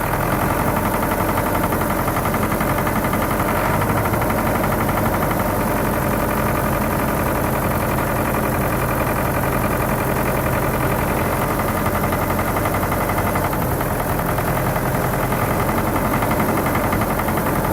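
MTZ-80 tractor's D-240 four-cylinder diesel running steadily with a persistent knock, which the owner traced to one injection pump section over-delivering fuel.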